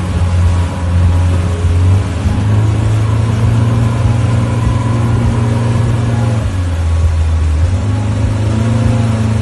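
Motorboat engine running steadily under load while towing, over a rush of wind and water; its pitch dips briefly about two thirds of the way through and then comes back up.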